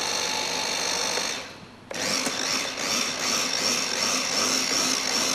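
Electric blender puréeing pumpkin soup: a steady motor whine that cuts out about a second and a half in, then starts again half a second later and keeps running.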